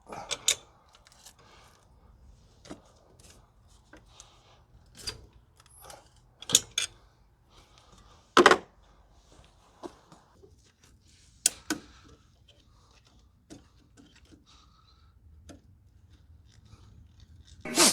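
Hand tools clinking and knocking on metal engine parts while the turbo is being unbolted: irregular light clicks with a few louder sharp clanks.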